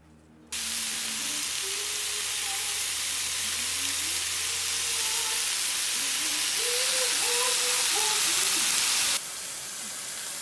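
Beef rib meat sizzling in a hot frying pan: a loud, steady hiss that starts suddenly about half a second in and drops to a quieter hiss about a second before the end.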